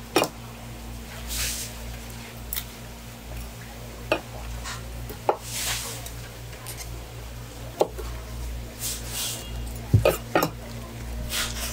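Kitchen knife cutting open sea squirts on a wooden cutting board: several sharp knocks of the blade against the board, two close together about ten seconds in, with short scraping cuts between them, over a steady low hum.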